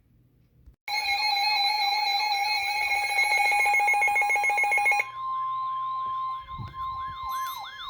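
Weather alert radio sounding its alarm for a severe thunderstorm warning. About a second in, a loud, steady electronic alarm tone with a fast buzzing pulse starts. It stops abruptly about five seconds in, leaving a repeating falling warble over a steady tone near 1 kHz, the NOAA Weather Radio warning alarm tone.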